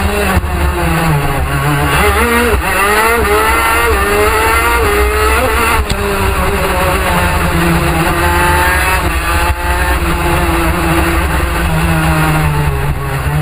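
Two-stroke 125cc TM shifter kart engine at racing speed, heard onboard, its pitch climbing under acceleration and dropping back again and again through the lap.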